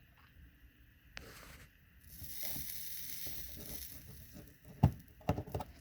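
Flux on a model railroad rail joint sizzling for about two seconds as a soldering gun heats it, then a sharp knock and a few clicks near the end.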